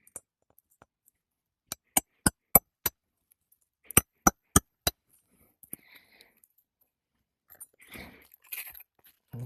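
Hammer striking a roof snake to drive a roofing nail in under the shingle above: a quick run of five sharp strikes, then four more about a second later. Softer rustling and scraping of shingles follows near the end.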